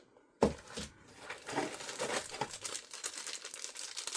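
Packaging crinkling and rustling as parts of a kit are unwrapped and handled, after a single knock about half a second in.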